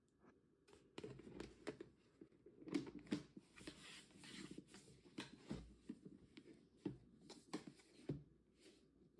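Handling noise from packing up a folding portable clothes dryer: rustling of its fabric and plastic with scattered light knocks and clicks, starting about a second in.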